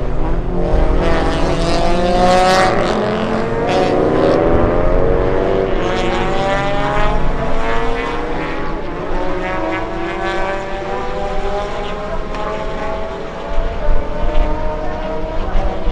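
A pack of GT200 touring race cars accelerating out of the first corner, several engine notes at different pitches rising together.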